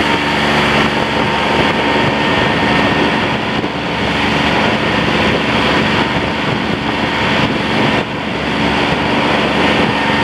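Small fishing boat's motor running steadily under way, with wind buffeting the microphone.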